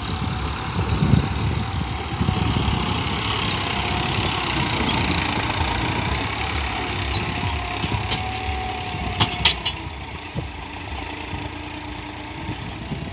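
New Holland 3630 tractor's three-cylinder diesel engine running steadily under load as it pulls a land leveler through sandy soil. A few sharp knocks sound about eight to nine and a half seconds in.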